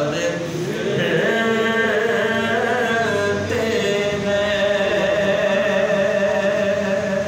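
A man's solo voice reciting an Urdu naat, drawing out long, held melodic notes.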